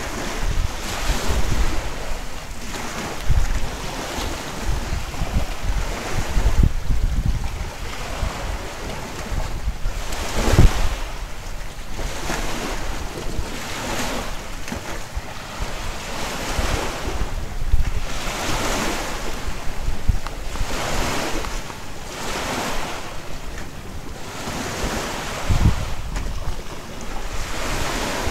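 Wind gusting across the microphone with a low rumbling buffet, over the repeated wash of sea waves on the shore, surging every couple of seconds.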